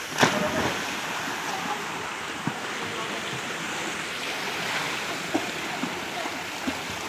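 A sharp splash as two people dive into a swimming pool together, about a quarter second in, then continuous splashing from swimming strokes in the water.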